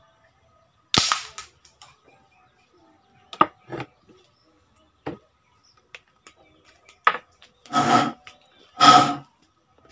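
A homemade alcohol-fired PVC marble gun fires an 8mm steel ball with one sharp shot about a second in. Several clicks and two longer handling noises follow near the end as the gun is worked.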